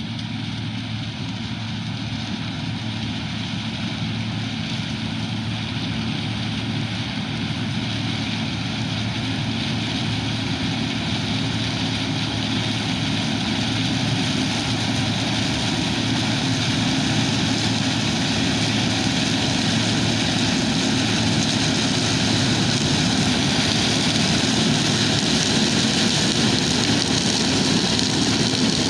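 John Deere Hillmaster combine harvesting corn, its engine and threshing machinery running steadily and growing gradually louder.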